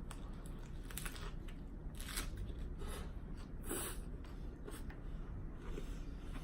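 Crisp crunching of a lettuce wrap being bitten and chewed close to the microphone, a short crunch about every second.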